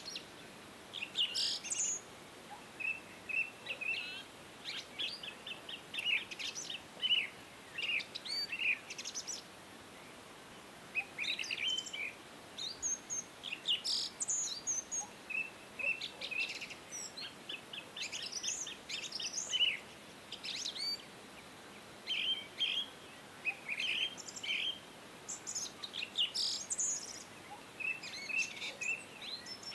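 Birds chirping and singing: quick runs of short high chirps and trills, every second or two, over a faint steady hiss.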